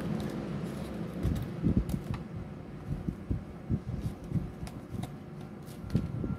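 Handling noise from paper finger puppets being moved on the fingers: irregular soft low bumps with a little papery rustle and a few faint ticks.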